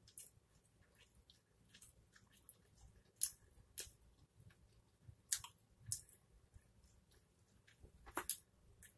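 Close-up chewing of a slice of pizza: wet mouth clicks and lip smacks come at irregular intervals, a few of them sharper and louder than the rest.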